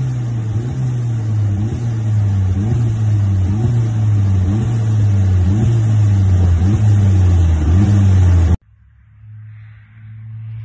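Stage 1 tuned Volkswagen Polo GTI 6C's turbocharged 1.8-litre four-cylinder running loud through its exhaust, its note wavering up and down about once a second and growing louder. About eight and a half seconds in it cuts off sharply, leaving a much quieter steady engine drone from a car at a distance.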